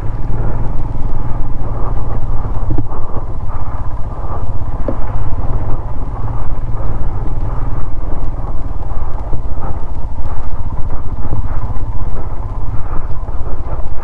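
Off-road motorcycle engine running steadily as the bike is ridden along a dirt track, a continuous low exhaust drone with a couple of faint ticks about 3 and 5 seconds in.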